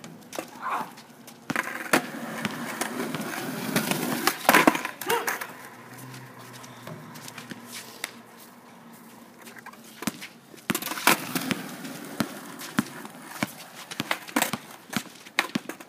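Pickup basketball on an outdoor asphalt court: a basketball bouncing and sneakers scuffing and slapping on the asphalt, in scattered sharp knocks. Players call out now and then, most busily in the first few seconds.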